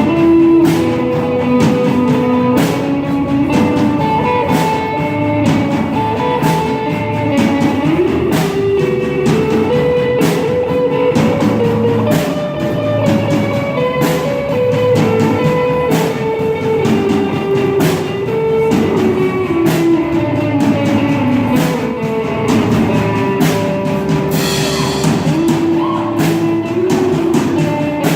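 Live rock band playing: guitars and a drum kit, with a held melody line rising and falling over regular snare and cymbal hits, and a cymbal crash near the end.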